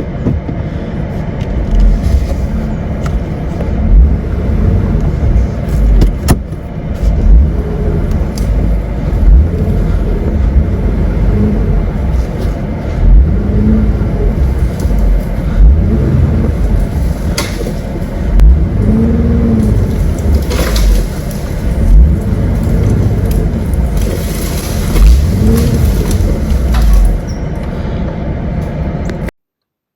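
A Jeep's engine revving in repeated rising-and-falling surges over a heavy low rumble, with a few sharp knocks along the way.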